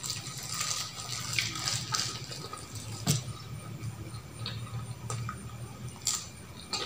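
A small plastic bag crinkling as it is handled, then eating sounds with a few sharp clicks of cutlery against the plate. The loudest click comes about three seconds in.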